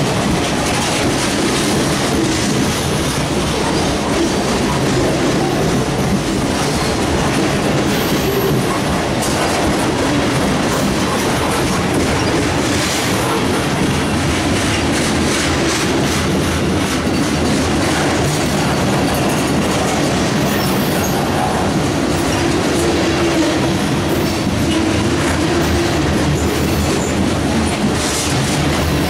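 Freight train cars, mostly boxcars and covered hoppers, rolling past close by. The steel wheels on the rails make a steady noise.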